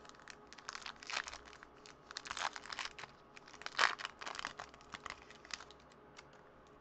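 A baseball card pack's wrapper being torn open by hand, crinkling and tearing in a run of irregular crackles that stops about a second before the end.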